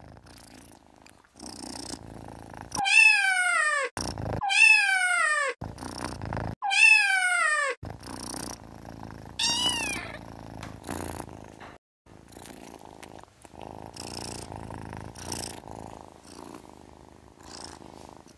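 Kitten meowing: three loud meows a second or so apart, each about a second long and falling in pitch, then a shorter meow about ten seconds in. Low purring runs underneath.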